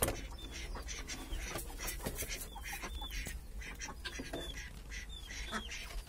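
Domestic fowl calling in the background, with repeated short high chirps and scattered clicks.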